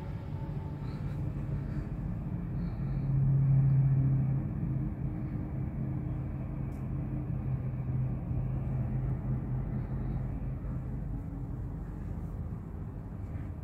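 Low, steady rumble of distant highway traffic heard through the window glass from high above, with a low hum that swells briefly about three seconds in.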